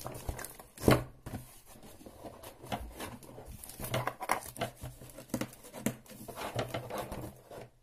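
Hands working at a heavily taped parcel: adhesive tape and packaging rustling, crinkling and tearing in irregular scrapes and clicks, with a louder knock about a second in.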